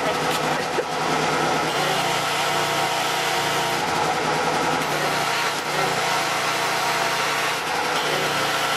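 Pressure washer running steadily, forcing water through the heater core hose to flush the heater core out. Its pitch shifts slightly about two seconds in and again near the end.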